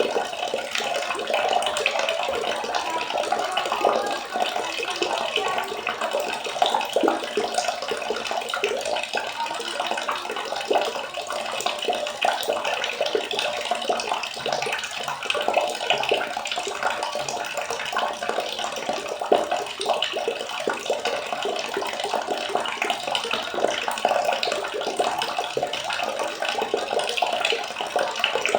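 Water splashing and trickling steadily, a dense run of small irregular splashes and drips.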